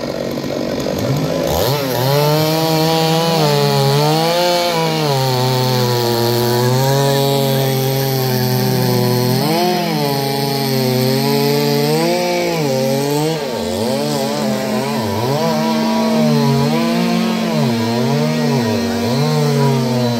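Petrol chainsaw cutting through the thick trunk of a fallen tree, its engine pitch rising and falling over and over as the chain bites into the wood.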